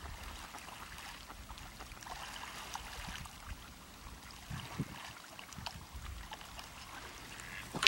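Water splashing and trickling as trumpeter swans feed with their heads under the surface, with many small splashes and drips and a few low thumps. A sharp click right at the end.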